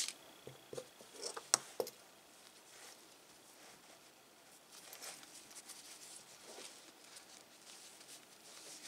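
Faint handling of fabric and pins as a zipper and felt are pinned to a crocheted bag: a few soft clicks in the first two seconds, then quiet rustling.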